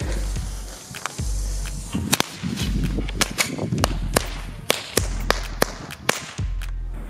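Knallfrosch (jumping-jack firecracker) going off: a string of about fifteen sharp cracks at irregular intervals, starting about a second in and ending a little before the end.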